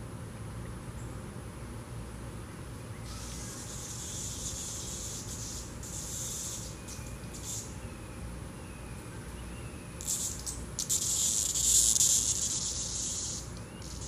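Pileated woodpecker rummaging and probing in dry leaf litter: two spells of crisp rustling and scratching, the second, about ten seconds in, louder and crackling.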